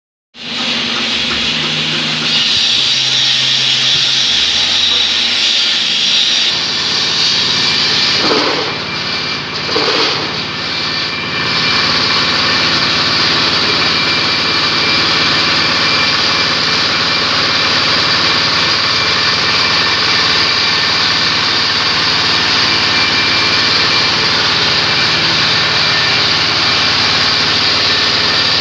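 Single-cylinder horizontal diesel engine running steadily, belt-driving a paving-block press, in a loud continuous mechanical din. The sound briefly changes about eight to eleven seconds in.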